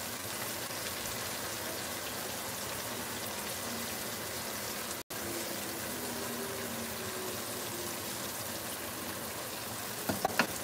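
Pork chops frying in a skillet, a steady sizzle that breaks off for an instant about halfway. A few small clicks from the fork in the pan come near the end.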